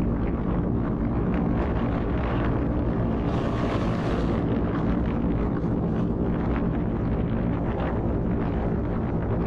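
Dodge Dart rally car's engine running at a steady speed while driving, with wind noise on the microphone. There is a short rush of hiss about three and a half seconds in.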